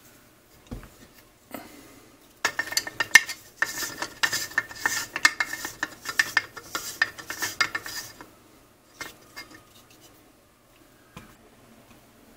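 OTIS Star Chamber cleaning tool twisted back and forth in an AR-style rifle's upper receiver, scrubbing the chamber and locking-lug recesses: a dense scraping, clicking rattle for about six seconds. Then a couple of light knocks as parts are handled.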